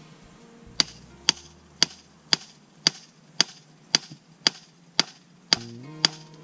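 Small sledgehammer striking a metal splitting wedge driven into a log on a chopping block: sharp ringing clanks about two a second, eleven in a row, starting just under a second in.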